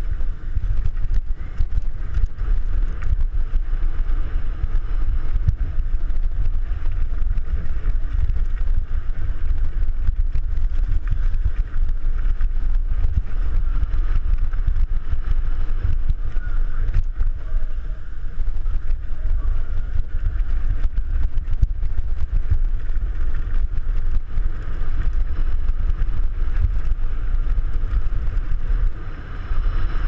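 Wind rushing over an action camera's microphone during a fast downhill mountain bike descent, with a constant clatter of small knocks and rattles from the bike running over rough dirt, boards and gravel.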